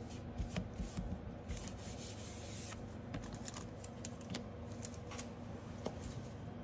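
A cleaning pad rubbing over a metal nail stamping plate as leftover stamping polish is wiped off, with light clicks and taps as things are set down on the mat.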